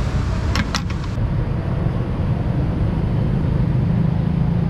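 Steady low rumble of nearby road traffic, vehicle engines running, with a few brief sharp clicks about half a second to a second in.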